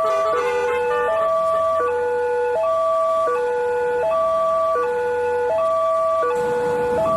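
Railway level-crossing gate siren sounding a steady two-tone alternation, high then low, each tone held about two-thirds of a second: the warning that a train is coming and the crossing barriers are closing. A rumbling noise joins in near the end.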